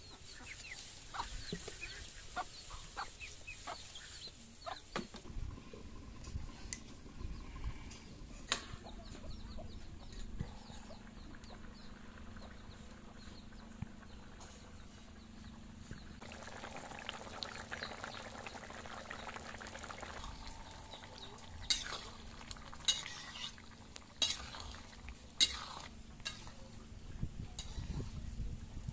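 A spatula stirring and scraping vegetables in a pan over a wood fire, with a soft frying sizzle and scattered clinks. Several louder, sharp clinks of the utensil against the pan come about two-thirds of the way in.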